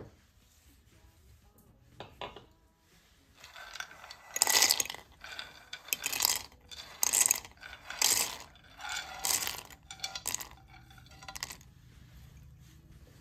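Roasted peanuts poured into an empty stainless steel mixer-grinder jar, clattering against the metal bottom and blades in a series of rattling bursts, about seven, loudest near the first.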